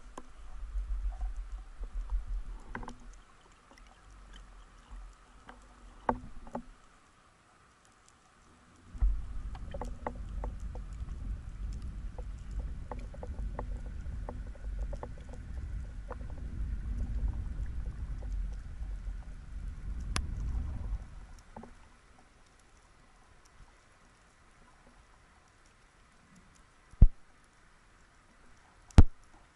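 Underwater water noise from a freediver moving and finning, heard through a speargun-mounted camera: a low rumble in two long stretches, the second starting sharply about nine seconds in and fading about twenty-one seconds in. Scattered sharp clicks and crackles run throughout, and two loud sharp knocks come near the end.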